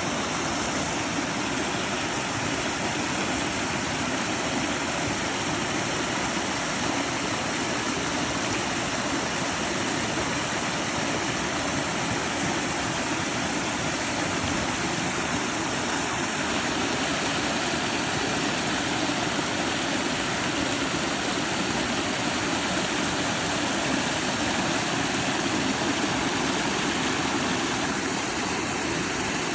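Waterfall with water falling and rushing steadily.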